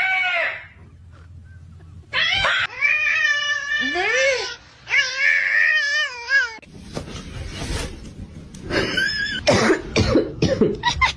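A cat meowing and yowling: long, wavering drawn-out calls, then a noisier stretch of shorter sounds.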